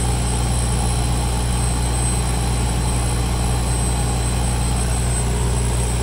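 DRASH trailer's diesel generator and its HVAC package unit running together, a steady, unchanging machine drone with a low hum.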